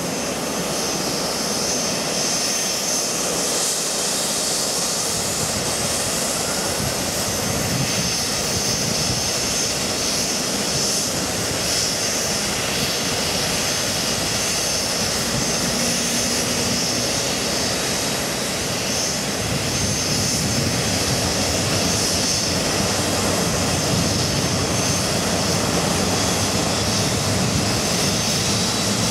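Boeing 737-800's CFM56 jet engine starting: steady turbine noise, with a faint high whine rising in pitch about four to nine seconds in as the engine spools up. The noise grows slightly louder about two-thirds of the way through.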